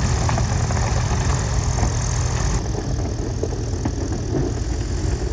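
Airboat engine and propeller running steadily as the boat skims across ice and snow.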